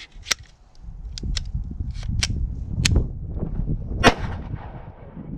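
Glock 17 pistol firing single shots at uneven intervals, the loudest about four seconds in, fed from a sand-fouled magazine that is causing feeding trouble. A low rumble of wind on the microphone runs underneath.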